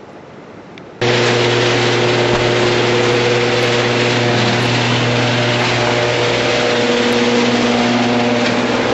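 An engine running steadily at a constant speed, with a low, even hum and overtones. It cuts in abruptly about a second in and stops suddenly near the end.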